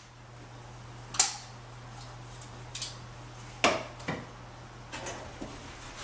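Wooden boards and plywood pieces knocking and clattering as they are handled and set down on a wooden hearth frame: two sharp knocks, about a second in and again past the halfway point, with lighter clunks between.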